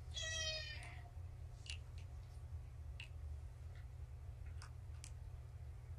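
A kitten gives one short, high meow at the very start. A few faint, scattered clicks follow over a steady low hum.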